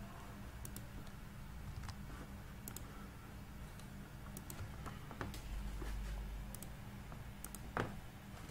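Scattered single clicks of a computer mouse, about eight sharp clicks spread irregularly, over a steady low electrical hum.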